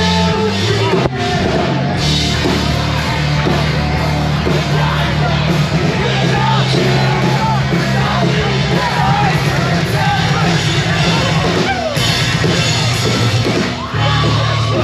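Post-hardcore band playing live and loud, with heavy bass and guitars and drums under a sung and yelled lead vocal. The band thins out briefly near the end, then comes back in.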